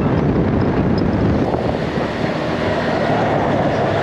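Wind buffeting the microphone over the steady running of a small motorcycle and its tyres on the road, from the pillion seat of a moving motorbike.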